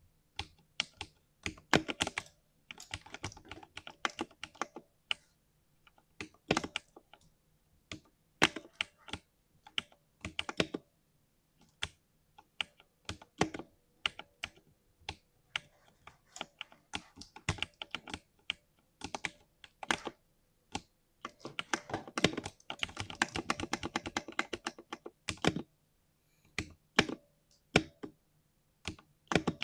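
Irregular clicking from a wired computer mouse and a mechanical keyboard: single clicks and quick runs, with a long rapid run about three-quarters of the way through.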